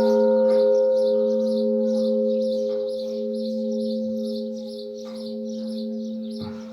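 A church bell rings out after its last stroke: a deep hum with two higher tones, slowly fading, its upper overtones dying away within the first two seconds. Behind it, a high chirping repeats two to three times a second.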